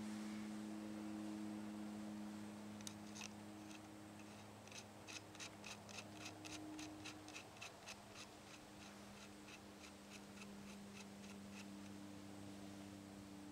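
Faint run of small metallic clicks as the FX Impact X air rifle's shroud is screwed by hand onto the threaded barrel end. The clicks start about three seconds in, come fastest in the middle and stop shortly before the end, over a steady low hum.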